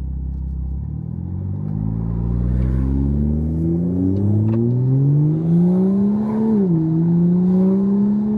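Toyota Supra MK5's turbocharged B58 inline-six, with a catless downpipe and titanium exhaust, accelerating: the engine note climbs steadily for several seconds, drops sharply at an automatic upshift about two-thirds of the way through, then climbs again. The turbo whistle is heard over the engine.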